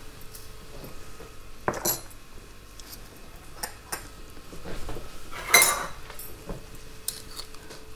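A metal teaspoon clinking and tapping against small bowls and containers while salt is measured out. There are a few scattered light knocks, the loudest a brief ringing clink about five and a half seconds in.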